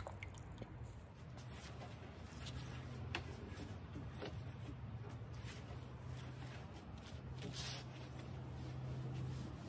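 Faint handling sounds of a damp rag being wrung out over a plastic bucket and wiped over the wooden side of a dresser, with a few small scratchy clicks, over a steady low hum.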